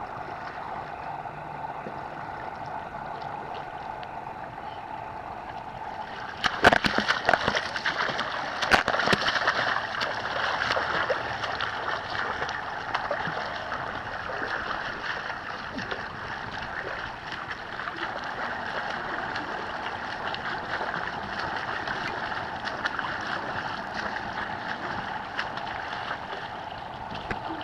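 A swimmer's strokes and kicks splashing in a pool, much louder from about six and a half seconds in, with many sharp slaps of hands and feet on the water. A steady rushing water noise runs underneath.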